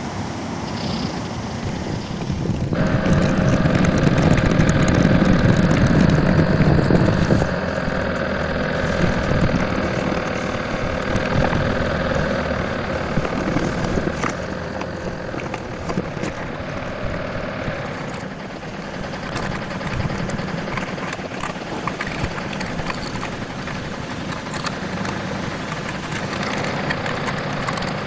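Dubbed truck engine sound effect that kicks in about three seconds in. It runs loudest for a few seconds as it starts up, then settles into a steady run.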